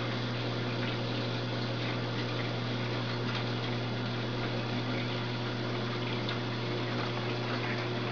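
A reef aquarium's water pump and circulation: a steady low hum under a constant wash of moving water, with a few faint ticks.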